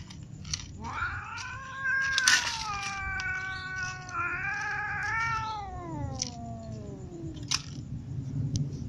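Domestic ginger cat yowling, a long drawn-out caterwaul in two long calls, the second sliding down in pitch at the end. A few sharp clicks sound over it, the loudest about two seconds in.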